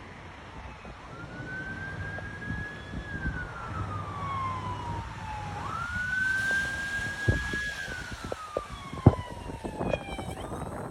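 A siren wailing over a low rumble. Its pitch climbs quickly, holds, then slides slowly down, in cycles of about four and a half seconds. A few sharp knocks come in the second half, the loudest about nine seconds in.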